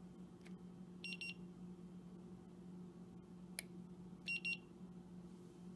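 A handheld infrared thermometer beeping twice in quick succession about a second in, and again about three seconds later as it takes its reading, with a single click between the two pairs. A faint steady low hum runs underneath.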